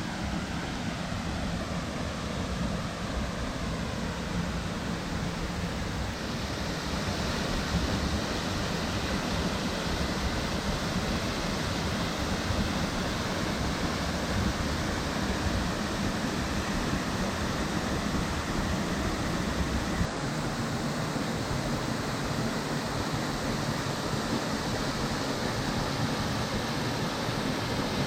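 Waterfall, a steady rush of falling water. The sound shifts abruptly twice: brighter about six seconds in, and with less low rumble about twenty seconds in.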